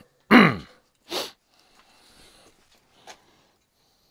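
A man sneezes once: a loud burst that falls in pitch. About a second later comes a short sharp sniff, then a faint click.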